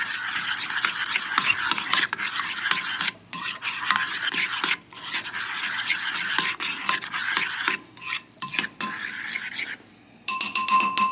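Metal fork beating a thick flour batter in a ceramic bowl: a fast, wet scraping with clicks of the tines against the bowl, pausing briefly now and then. Near the end, a short ringing clink of the fork on the bowl.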